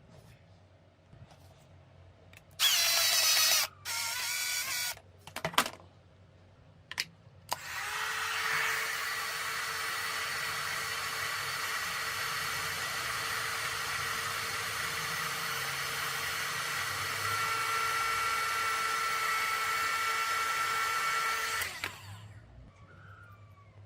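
A handheld electric power tool gives two short bursts, then runs steadily for about fourteen seconds before stopping, with a few clicks in between.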